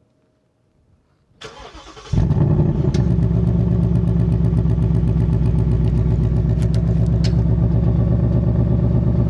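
Ford Mustang V8 being started: a brief crank about a second and a half in, then the engine catches loudly and keeps running steadily.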